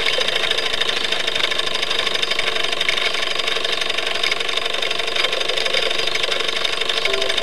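Wilesco D36 toy steam roller's live-steam engine running fast and steady, a rapid even clatter of strokes.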